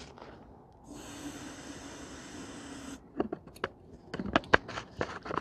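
Potato gun being readied to fire: a steady hiss of gas going into the chamber, lasting about two seconds and stopping abruptly, then a run of sharp clicks and knocks.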